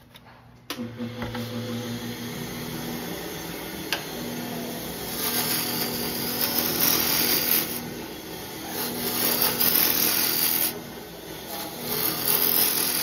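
Wood lathe starting about a second in and then running with a steady hum, while a roughing gouge cuts the spinning wooden mallet blank in three passes, each a loud rush of shavings.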